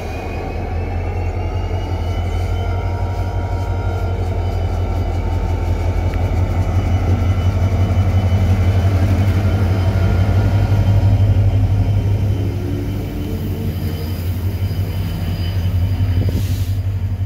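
EMD GT36CW diesel-electric locomotive pulling out with a passenger train and passing close by: a deep, steady diesel rumble with a faint high whine above it. It grows louder as the locomotive goes past, then eases as the coaches roll by.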